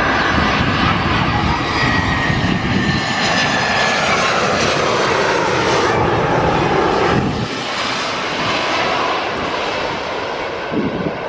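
Airliner passing low overhead: loud engine noise with a high whine that slides slightly down in pitch. The deep rumble falls away about seven and a half seconds in.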